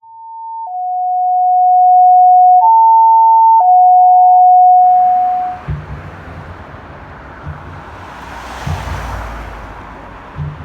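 Loud electronic alert tones, steady pure notes switching back and forth between two pitches for about five seconds, typical of fire dispatch alerting tones. They give way to the rumble of a fire truck's engine running, with uneven low pulses.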